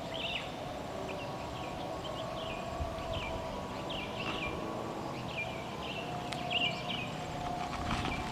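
Small birds chirping over and over in short, high, downward-sliding calls, a few each second, over a steady faint hum.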